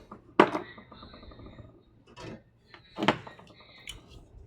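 Two sharp knocks, about half a second and three seconds in, with lighter clicks and a brief rattle between them: hard objects being handled and set down on a work surface.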